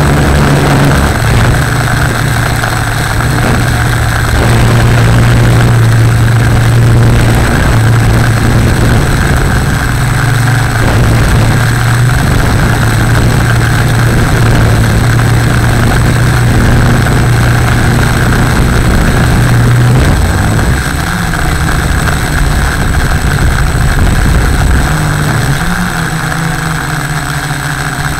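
Tarot Y550 hexacopter's motors and propellers humming steadily in flight, heard close up from on board. The hum shifts in pitch about twenty seconds in and again near the end.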